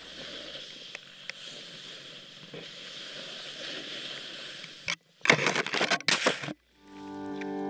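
Snowboard sliding and carving through snow, a steady scraping hiss with scattered ticks. About five seconds in it cuts out, then gives about a second and a half of loud rough crunching before cutting out again. A sustained guitar chord swells in near the end.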